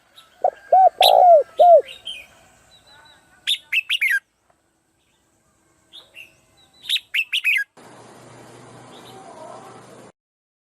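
Birds calling: a run of four loud arching notes early on, then two quick bursts of high, falling chirps. After them comes a couple of seconds of faint steady hiss that cuts off suddenly.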